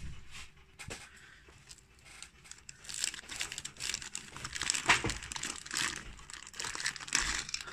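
Clear plastic bag crinkling as a toy train carriage is worked out of it by hand: a few scattered crinkles at first, then dense, continuous crinkling from about three seconds in.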